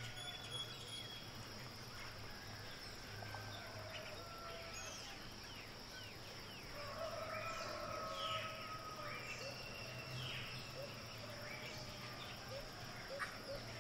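Woodland ambience: a steady high-pitched insect drone with birds calling in short chirps, busier about halfway through, over a low steady hum.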